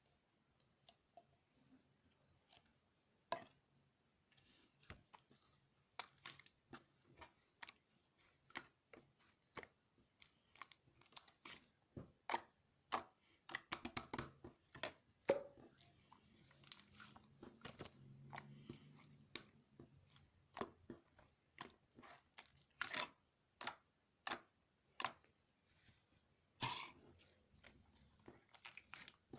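Something crunchy being chewed: many short, irregular crunches, faint and close, busiest around the middle.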